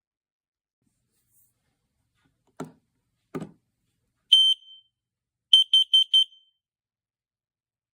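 X-Sense carbon monoxide alarm's sounder beeping at a high pitch: one beep, then four quick beeps in a row, the four-beep pattern that signals carbon monoxide. Two soft clicks come just before the first beep.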